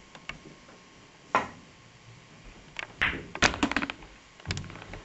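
Pool balls on a pool table: a single sharp click about a second and a half in, then a quick cluster of ball-on-ball clicks and knocks around three seconds in, and a few more knocks near the end.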